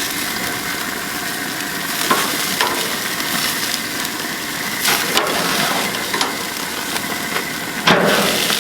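Pork chops and dripping grease sizzling hard on a hot gas grill, a steady hiss with a few sharp pops, about two seconds in, near five seconds and near the end.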